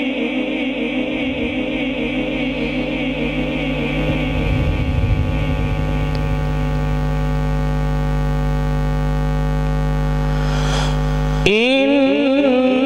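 Quran recitation through a microphone and loudspeaker. The tail of a chanted phrase gives way to a steady held tone with a low hum for about ten seconds, and a new wavering chanted phrase starts abruptly near the end.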